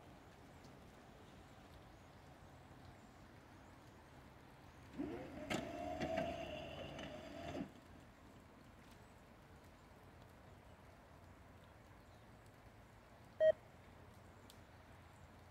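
Distant air horn of a Norfolk Southern freight locomotive, one blast of about two and a half seconds starting about five seconds in, its notes rising in pitch as it sounds, then holding. A short high beep comes near the end.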